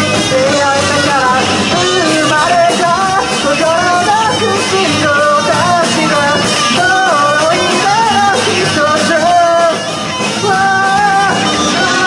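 Live rock band playing: a lead vocal sung over distorted electric guitars, bass and drums. The band drops out briefly near the end before coming back in.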